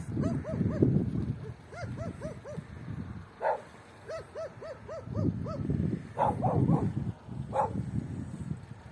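A dog yapping in runs of short, evenly spaced yips, about three a second, with a few sharper single barks. Gusts of wind rumble low on the microphone now and then and are the loudest sound.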